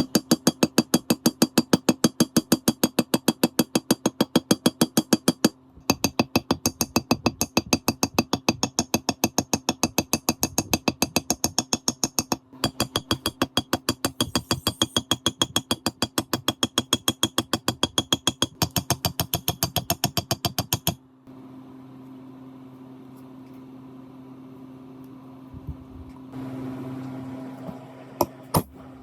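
Rapid, evenly spaced metallic strikes with a ringing tone, about four to five a second, in four runs broken by short gaps. They stop about two-thirds of the way through, leaving a steady low hum and a few light knocks near the end.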